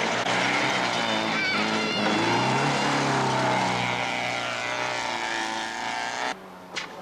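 Rally car engine revving hard at speed, its pitch rising about two seconds in. The sound drops away suddenly near the end.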